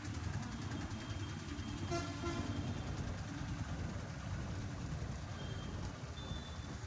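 Busy night street traffic heard while riding through it: a steady rumble of engines and wind, with a brief vehicle horn toot about two seconds in.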